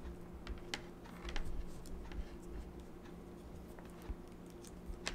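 Faint, scattered small clicks and rustles of multimeter probe tips and test leads handled against the insulated crimp connectors on the capacitor wires, over a faint steady low hum.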